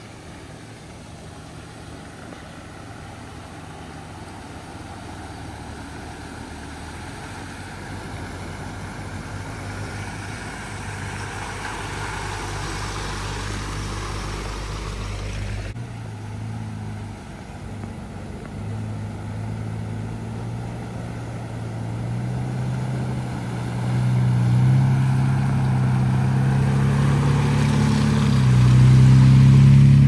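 A four-wheel-drive vehicle's engine running as it drives, growing steadily louder, with a break about halfway through. Near the end the engine revs up, rising in pitch, then cuts off suddenly.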